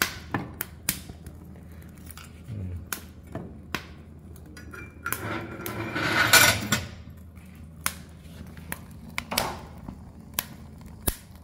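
Wood splints being fed into a wood-burning stove and a cast-iron hob lid moved with a lifting hook: scattered knocks and clinks of wood and metal, with a longer metal scrape about six seconds in.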